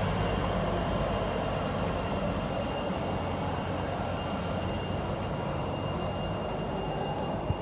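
Engine of a double-decker bus running as it pulls away across the junction, its low hum fading over the first few seconds, over steady city street noise.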